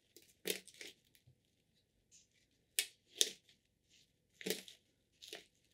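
Hands working a plant pot and potting soil: about six short, separate crunching, crinkling rustles.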